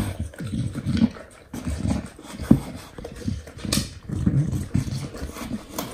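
English bulldog snuffling and sniffing hard as it noses a food puzzle toy for hidden egg pieces, with a few sharp knocks in between.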